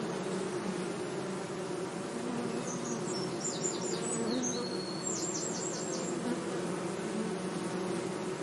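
Bees buzzing steadily, a continuous hum of wingbeats. Partway through, a bird chirps a handful of quick high notes.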